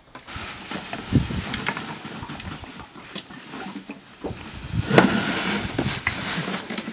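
Handling noise as a clear plastic hose and a plastic jerrycan are moved about on deck, with a knock about a second in and a louder one about five seconds in, over a steady hiss of wind.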